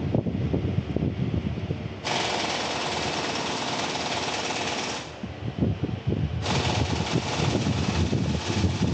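Impact wrench hammering in two bursts of about three seconds each, the second starting about six and a half seconds in, with clattering of tools in between.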